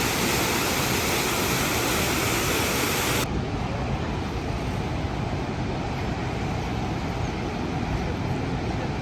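Rhine Falls waterfall roaring, a loud, even hiss of falling water. About three seconds in it cuts off sharply to a duller, deeper rumble with little of the high hiss.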